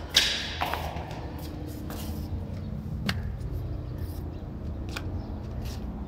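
Footsteps on a tiled rooftop: a few soft clicks about a second apart over a steady low rumble, with a short hissing scrape just after the start.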